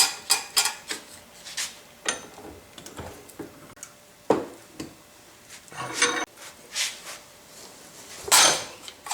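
Steel parts clinking and knocking together while needle bearings are pressed out of an idler sprocket with mandrels: a string of irregular sharp metallic clinks with brief ringing, the loudest and longest about eight seconds in.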